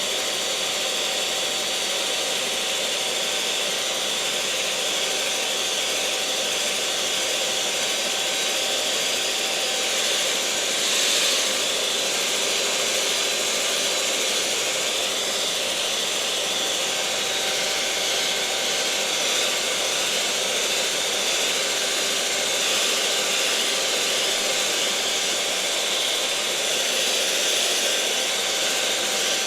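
Electric mixer motor running steadily, a continuous whirring hum with a faint steady tone in it, briefly a little louder about eleven seconds in.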